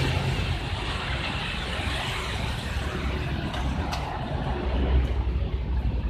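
Road traffic on a busy street: a steady rumble of passing cars and trucks.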